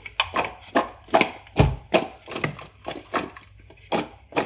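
Cut raw potato chunks tumbling and knocking against a bowl as they are tossed and mixed by hand with salt, chili and turmeric: a run of uneven sharp knocks, roughly three a second.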